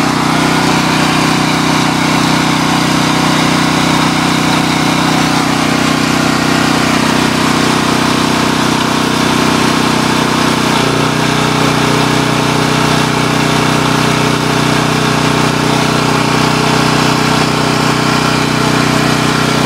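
Sportsman 4000LP portable generator's single-cylinder engine running steadily under test, its note shifting slightly about halfway through.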